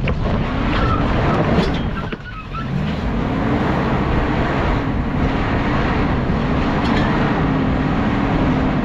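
Off-road truck's engine revving under load as it crawls up a rock ledge. The revs drop briefly about two seconds in, climb again and hold with small rises and falls as the driver works the throttle.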